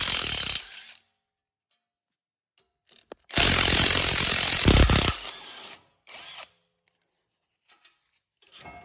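Power tool running in two bursts, loosening the brake caliper carrier bolts: the first stops about a second in, the second lasts about two seconds from a little past three seconds.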